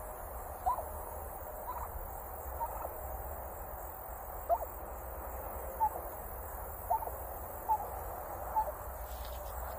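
Domestic turkey hen giving a string of short, high chirps, about one a second.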